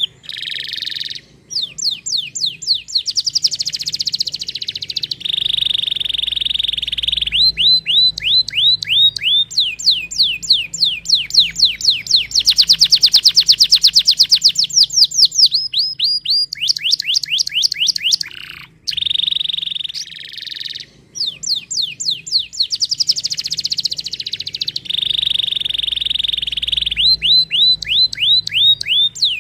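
Domestic canary singing: fast rolling tours of short, high, repeated sweeping notes, several per second, that switch from one phrase to the next, with steady buzzing trills between them and a few brief pauses.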